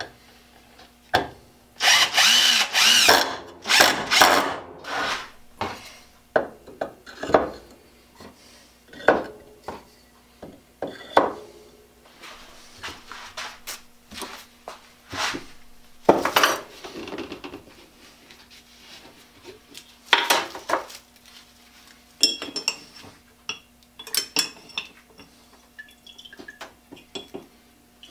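Cordless drill running in short bursts into a wooden block, then knocks and clatter of wooden saw handles and tools being handled on a workbench, with plastic crinkling later on. A faint steady hum lies underneath.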